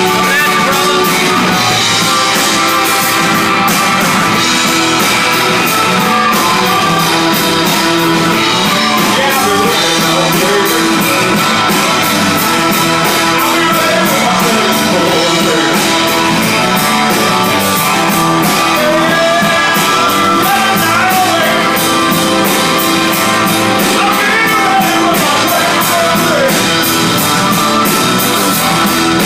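Live rock band playing: a drum kit with a steady cymbal beat, electric guitar and a Nord C2D combo organ, with a sung vocal line over them.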